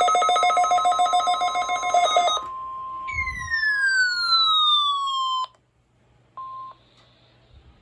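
Weather radio alert tones: a steady alarm tone near 1 kHz, with a rapidly pulsing electronic alarm over it for the first two and a half seconds, then a falling sweep tone. Everything cuts off suddenly about five and a half seconds in. A short beep and faint static follow.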